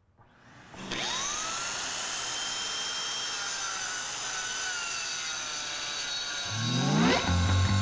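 Dust vacuum switched on about a second in: its motor spins up with a rising whine and then runs steadily. Near the end a louder, deeper sound that rises in pitch joins in.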